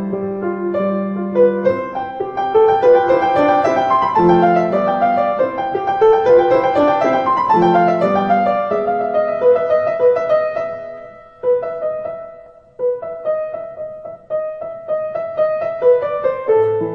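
Background piano music: a gentle melody with rising and falling runs of notes, thinning to sparser single notes after a short dip about two thirds of the way through.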